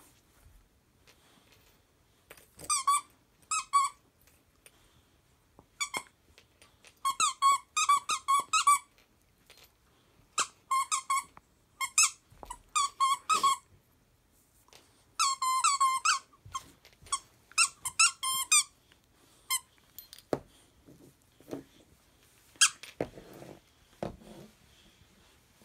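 Husky chewing a squeaky chew toy: runs of short, high, wavering squeaks with pauses between them, followed by a few soft knocks near the end.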